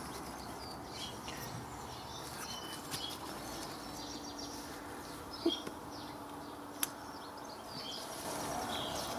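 Birds chirping in the background of a garden, with a couple of light clicks of motorcycle brake caliper parts being handled and fitted together.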